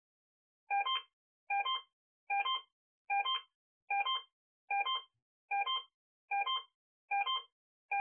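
Electronic beeps repeated about ten times, a little more than once a second, each a short multi-tone chirp; the first comes just under a second in.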